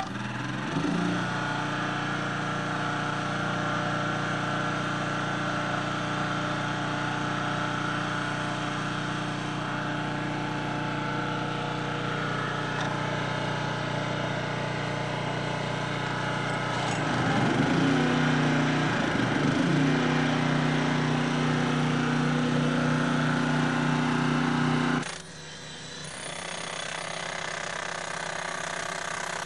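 Small gasoline engine running steadily; about 17 seconds in its speed wavers and rises, and about 25 seconds in it cuts out abruptly. A second, higher-pitched machine then starts running.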